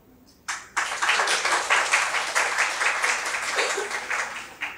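An audience applauding: the clapping starts about half a second in, swells at once to a full round, and dies away near the end.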